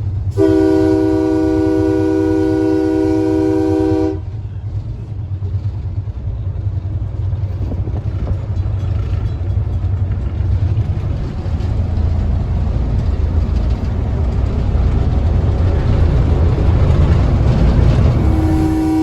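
Train horn blowing one long chord for about four seconds, then the steady low rumble of the railway car rolling along the track, growing a little louder; a second horn blast starts near the end.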